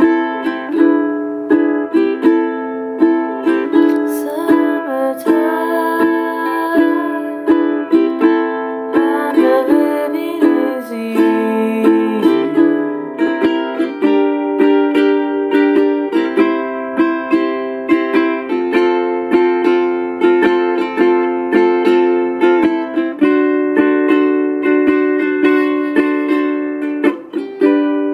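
Enya M6 concert ukulele strummed through a chord progression, with regular strums and chord changes every second or two.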